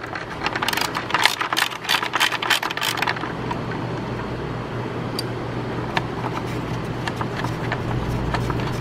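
Socket ratchet clicking in quick strokes as a bolt is backed out of a motorcycle's front fairing bracket, about four or five clicks a second for the first three seconds. After that a steady low hum takes over, with an odd single tick.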